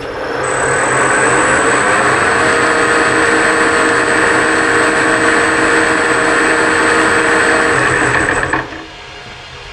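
A Monarch 10EE lathe's AC motor, run from a Huanyang GT variable frequency drive, spins up, runs steadily, then drops away about eight and a half seconds in as it slows. Over the motor and drive-belt noise sits a steady high whine from the drive's carrier frequency, now at the factory setting of 8 kHz. That setting has cleaned up a lot of the frequency noise, but a little of it is still there.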